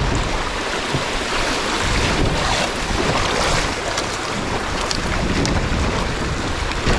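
Strong wind buffeting the microphone in a heavy low rumble, over the steady rush of river water through a shallow rapid as a kayak runs it.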